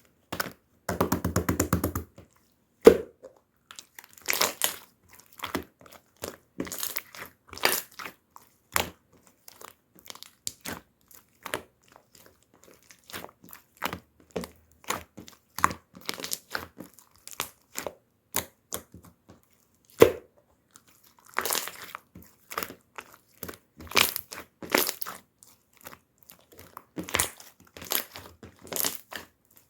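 Slime being squished, stretched and poked by hand, giving irregular sticky clicks and pops. About a second in there is a quick run of rapid crackles.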